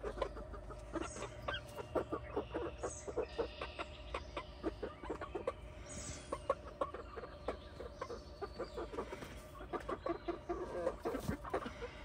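Pet hens clucking softly at close range, a steady run of short, quiet clucks.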